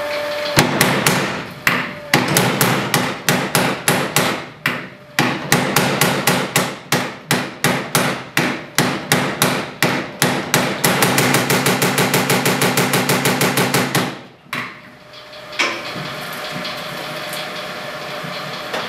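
A Hattersley & Davidson spring power hammer of about 100 weight striking: slow, uneven single blows at first, then a fast, even run of blows for about three seconds that stops suddenly. After that its motor and drive run on with a steady hum. The blow rate is controlled from single blows up to full speed.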